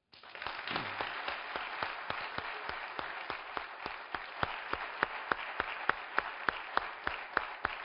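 Audience applauding, starting all at once. One person's claps, close to the microphone, stand out above the rest at about three a second.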